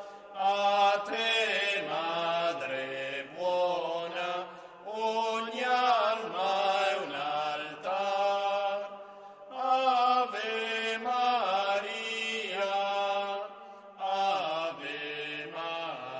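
A slow Marian hymn being sung in long held notes with a wavering vibrato, in phrases of about four to five seconds with brief breaks between them.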